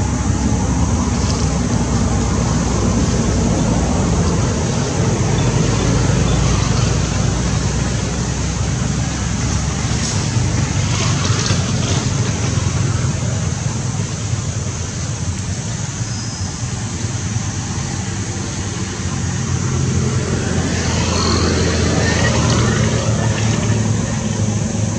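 Steady low rumbling outdoor background noise with no clear single source, heaviest in the bass. Some fainter higher sounds rise briefly about twenty seconds in.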